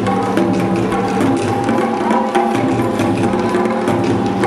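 Music with percussion: quick drum and wood-block hits over held pitched tones, the pyromusical show's soundtrack.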